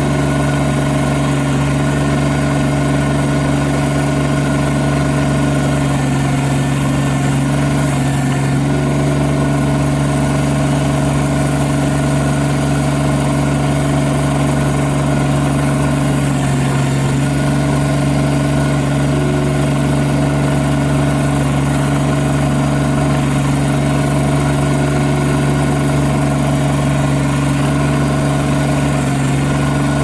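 Kubota BX25D sub-compact tractor's three-cylinder diesel engine running steadily at a constant speed while the backhoe is worked.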